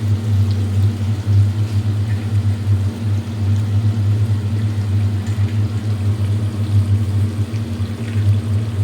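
A steady low hum, even in level throughout, with faint clinks and cooking noise from the pan beneath it.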